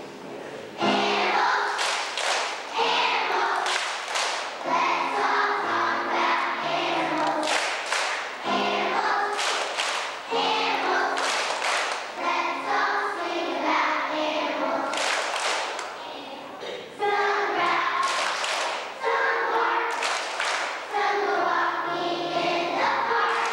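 Group of young children singing a song together as a choir, in short melodic phrases about two seconds long.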